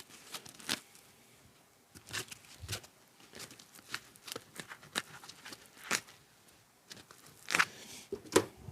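Cut pieces of ShadowFoam tool-organiser foam being peeled and torn out of the sheet by hand: a run of scattered short tearing crackles, the loudest a little before the end.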